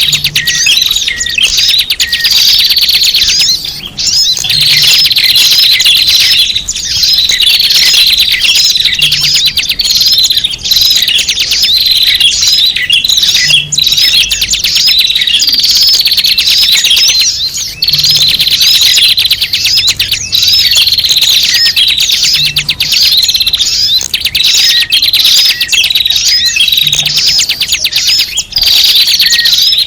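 Loud, dense chattering of many small birds, high chirps and twitters crowding over one another, from a bird-lure (pikat) recording. The pattern repeats about every four and a half seconds, as a looped lure track does.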